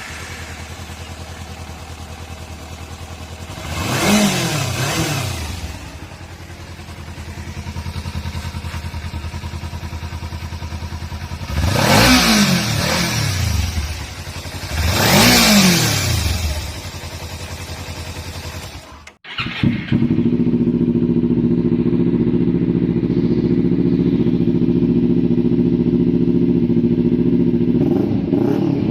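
A small-displacement sport motorcycle's exhaust idling, blipped three times: each rev rises and falls back to idle. After a sudden cut about two-thirds of the way through, a motorcycle exhaust idles steadily and louder, with a short blip near the end.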